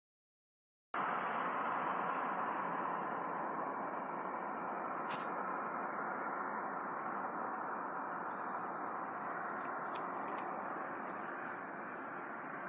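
Evening chorus of crickets and other insects: a steady high ringing with a fast pulsing trill above it, over a broad rushing noise that slowly fades. It starts suddenly about a second in, with a few faint ticks near the middle.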